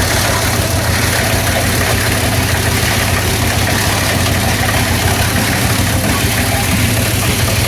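Single-cylinder Eicher tractor diesel engine running steadily with a rapid low pulsing, driving a plastic scrap grinder that adds a dense, even whir over it.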